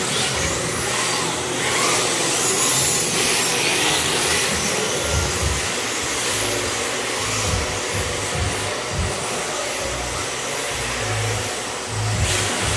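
Radio-controlled drift cars running and sliding around an indoor track, a steady mechanical whir with tyre noise.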